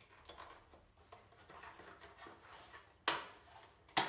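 Faint scraping and handling noise from a screwdriver loosening the screws that hold a one-octave key segment of an electronic keyboard. Near the end come two sharp plastic clicks about a second apart as the segment is clicked loose.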